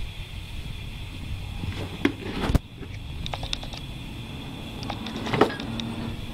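Cardboard box rustling and scraping as a young Schnauzer puppy paws and climbs at it, with scattered light clicks and two louder scrapes, about two seconds in and about five seconds in.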